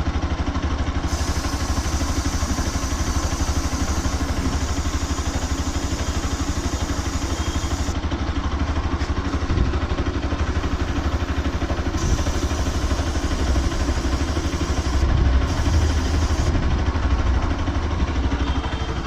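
An engine idling steadily, an even low drone with a fast regular pulse.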